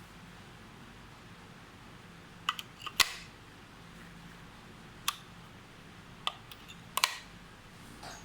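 Wireless doorbell parts being handled: about five short, sharp clicks and taps, the loudest about three seconds in and another strong one near seven seconds.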